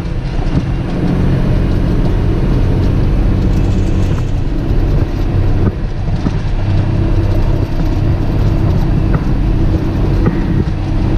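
Truck engine running steadily while driving slowly along a rough dirt road, with a few light knocks from the ride over the bumps.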